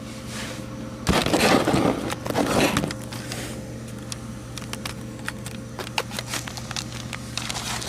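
Rustling and handling noise as a camera is moved around behind a desktop computer, with a louder patch of rubbing and scraping in the first few seconds and scattered small clicks and crackles after. A steady low hum runs underneath.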